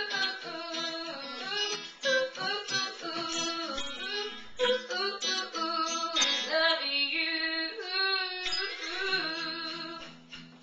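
A female voice singing a song over guitar accompaniment; near the end the voice drops out while the guitar chord holds.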